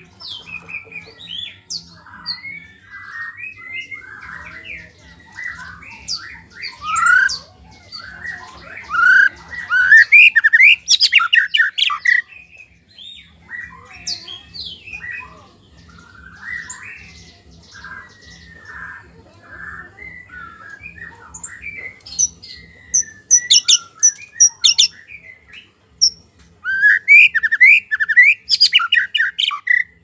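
White-rumped shama (murai batu) singing a long run of varied whistled phrases: clear rising and falling notes, broken by loud rapid high chattering runs about ten seconds in, around twenty-four seconds and near the end.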